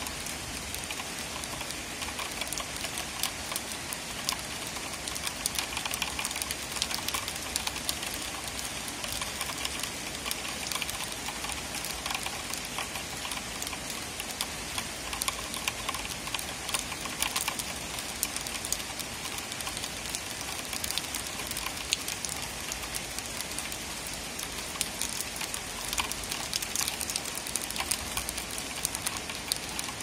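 Steady rain falling: an even hiss dotted with many small, sharp drop ticks.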